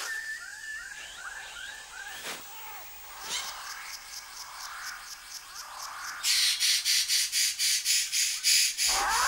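Rainforest animal calls. Birds give a quick run of whistled, curving notes followed by scattered chirps. About six seconds in, a loud, even pulsing call at roughly five pulses a second takes over.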